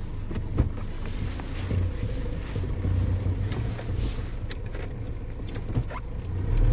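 GAZelle Next van's engine running steadily, a low rumble, with a few short knocks and clicks over it.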